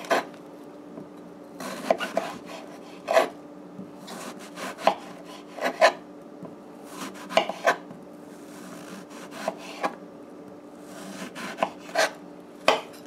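Kitchen knife slicing eggplant into sticks on a wooden cutting board: irregular knocks of the blade through the flesh onto the board, some in quick pairs, over a faint steady hum.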